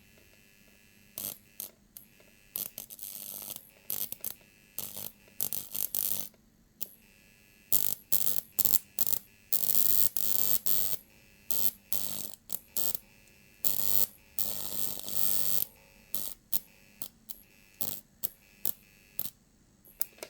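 High-voltage arcing from a microwave oven transformer's output, driven by a small square-wave UPS inverter: irregular bursts of electric arc, mostly short snaps, with longer sustained arcs of a second or two about halfway through. A faint low hum runs under it.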